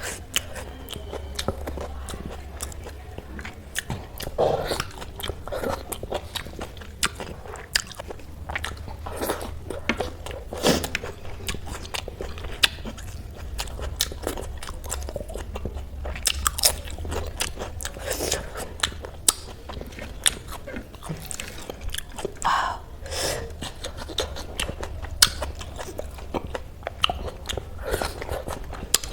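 A person chewing and crunching crisp food, with sharp crunches scattered densely throughout.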